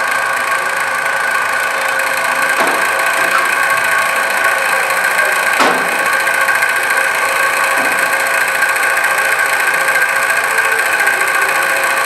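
A loud, steady machine hum with several held tones. Over it come a few sharp knocks of a knife striking the cutting board, about three seconds in, near the middle and again a couple of seconds later.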